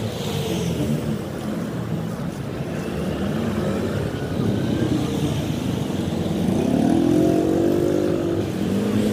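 Street traffic: a motor vehicle's engine runs close by, getting louder through the stretch. From about six and a half seconds in, its pitch rises as it accelerates.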